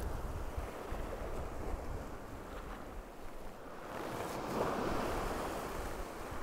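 Sea surf washing over a rocky shore, with some wind on the microphone; a wave surges in and washes louder about two-thirds of the way through.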